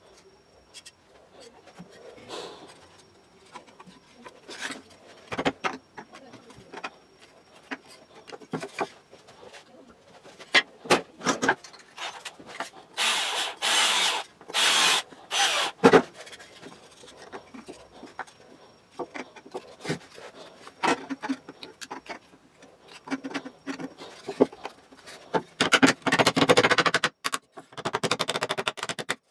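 Wooden parts of a toy plane handled and fitted together on a workbench: scattered clicks and knocks of wood on wood, with stretches of rubbing and scraping. The longest run of rubbing comes near the end, as the top wing is pressed down onto its dowels.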